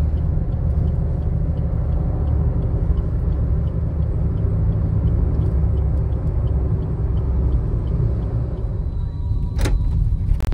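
Car interior road noise while driving on a highway: a steady low rumble from the tyres and engine, with a faint regular ticking about three times a second and one sharp click near the end.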